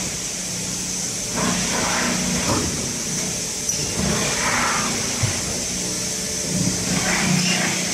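Automatic plastic-cup thermoforming machine running, a steady mechanical hum with a constant hiss over it amid the noise of an exhibition hall.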